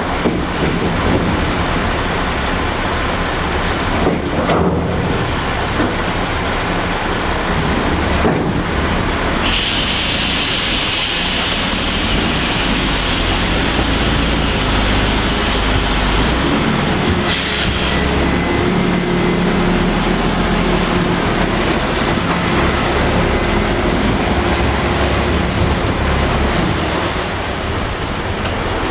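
Heavy diesel machinery, a truck and a container reach stacker, running steadily, with a steady hiss lasting about eight seconds in the middle.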